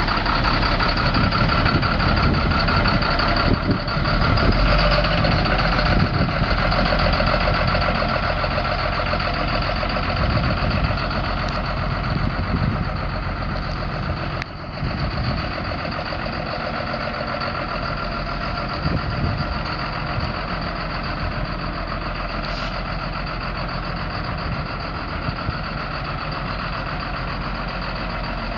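Caterpillar C7 7.2-litre inline-six turbo diesel of a Freightliner M2 truck running steadily.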